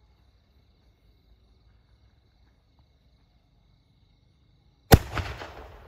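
An aerial firework shell bursts with one sharp, very loud bang about five seconds in, followed by a quick scatter of smaller crackles that fade away.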